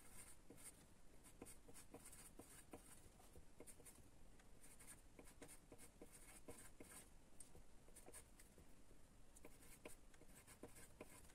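Pencil writing on paper: faint, quick scratches and taps as numbers and symbols are written out stroke by stroke.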